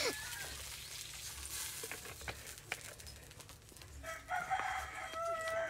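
A rooster crowing once near the end, a long drawn-out call. Before it, a few light clicks.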